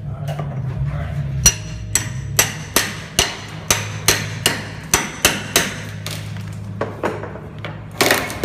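A hammer strikes a steel pry bar wedged behind wooden molding to drive it in: a run of about a dozen sharp metal blows, two to three a second, then a few spaced-out hits and a louder, longer crack near the end.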